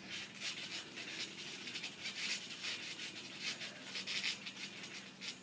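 Panting close to the microphone: quick, irregular breathy puffs, a few each second.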